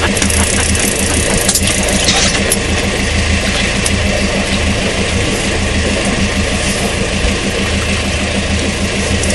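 Fishing boat's engine idling with a steady low hum, under a haze of wind and sea noise.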